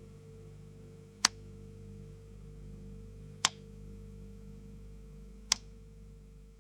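Synthesized 'relief' sound effect: a soft, steady low drone of held tones with three sharp ticks about two seconds apart. It cuts off suddenly at the end.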